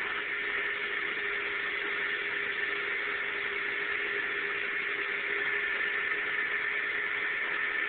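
Upholstery shampooer's suction motor running steadily with a constant whine, drawing water and dirt out of a couch.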